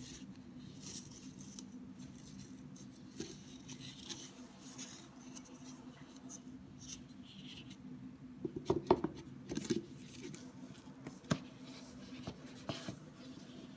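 Gloved hands handling a cylindrical cardboard puzzle tube and its lids: soft rubbing and scraping of paperboard, with a cluster of louder taps and knocks a little past the middle and a couple of single knocks after. A faint steady hum sits underneath.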